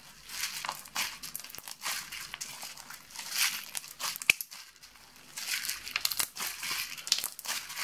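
Glue slime packed with small plastic googly eyes being stretched and squeezed by hand, giving irregular crackles and pops, with one sharp click about four seconds in.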